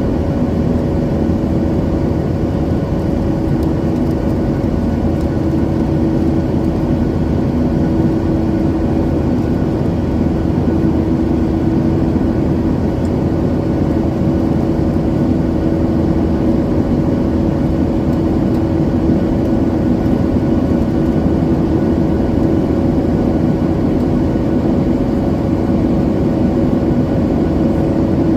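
Cabin noise of a Boeing 737-900ER, its CFM56-7B jet engines running steadily with a constant rush and a steady low hum, heard from inside the passenger cabin.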